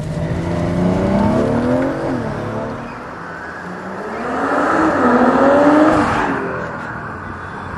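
BMW M340i's turbocharged 3.0-litre B58 straight-six, breathing through a Milltek downpipe and full exhaust system, accelerating hard: the revs climb for about two seconds, drop back, then climb again to their loudest about five to six seconds in before easing off.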